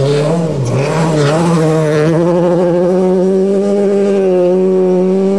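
Toyota GT86 rally car's flat-four boxer engine running hard at high revs on a gravel stage. The revs dip briefly just under a second in, as on a lift or gear change, then climb a little and hold steady at high revs.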